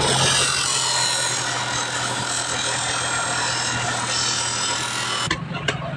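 Power tool motor running with a steady hiss and hum, cutting off abruptly about five seconds in.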